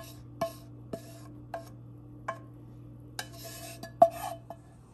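Wooden spatula scraping cooked tomatoes out of a frying pan into a skillet, with sharp knocks of the spatula against the pan's rim and a short metallic ring after each. The knocks come irregularly, with two stretches of scraping about three and four seconds in and the loudest knock about four seconds in.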